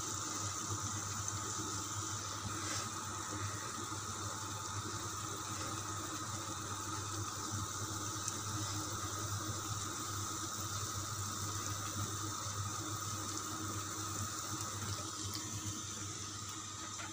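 Dough balls deep-frying in hot oil in a stainless steel pot: a steady bubbling sizzle as they brown.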